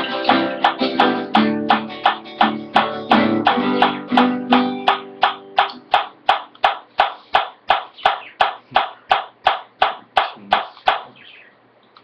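Guitar strummed with a pick in a steady, even rhythm, about three strokes a second. For the first half the chords ring out full; after that the strokes turn short and thin with little ringing, then fade and stop near the end.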